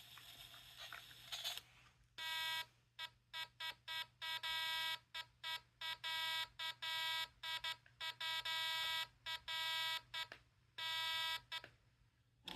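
Homemade Morse code machine sounding a buzzy tone keyed on and off in short and long beeps, Morse dots and dashes, starting about two seconds in and stopping shortly before the end.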